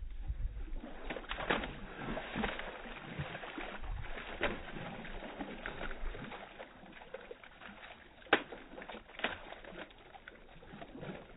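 A puppy splashing and sloshing through shallow muddy water as it paws at a branch, with irregular sharp knocks and splashes, the loudest about three quarters of the way through.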